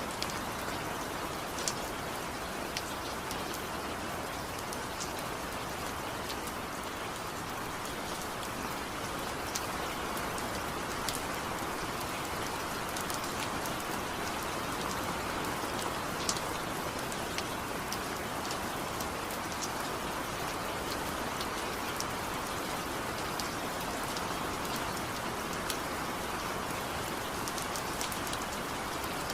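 Steady rainfall, with a dense even hiss of rain and scattered sharper ticks of single drops hitting a surface.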